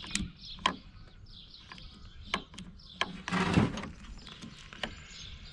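Scattered sharp clicks and taps of hands and small tools working on a chainsaw's carburetor and linkage, with a short scraping rustle about three seconds in. Faint bird chirps in the background.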